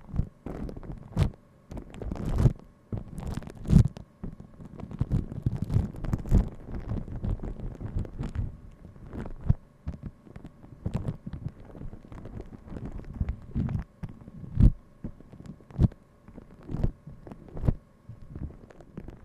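Close-miked ASMR trigger sounds: irregular soft taps, clicks and low thuds, a few a second with uneven gaps.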